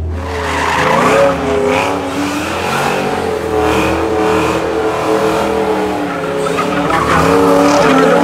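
A car doing donuts, its engine revving up and down while the rear tyres squeal and spin against the pavement.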